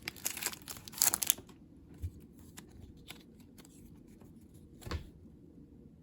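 Foil Pokémon booster pack wrapper crinkling and tearing for about the first second and a half, then quieter handling with two soft thumps.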